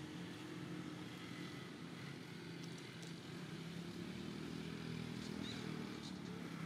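Steady low hum of an engine running at an even speed.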